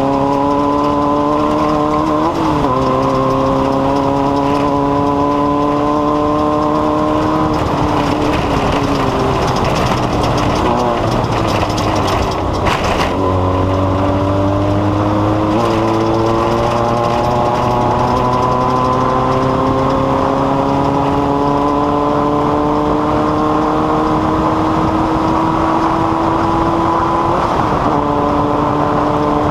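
Off-road race vehicle's engine running under load, its pitch climbing slowly as speed builds, with a few short dips in pitch and a lull about a third of the way through before it climbs again, over constant rough road and wind noise.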